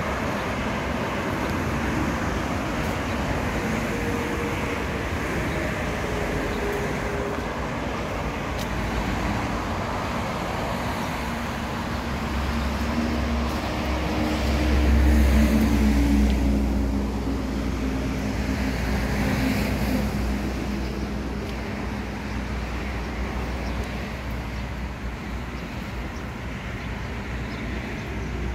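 Steady road traffic noise, with one louder vehicle passing about halfway through, its low rumble and engine hum swelling and then fading.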